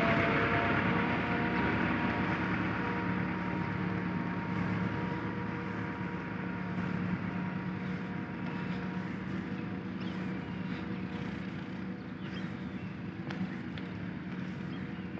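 Massey Ferguson 385 tractor's diesel engine running steadily with an even hum, growing gradually fainter as the tractor draws away.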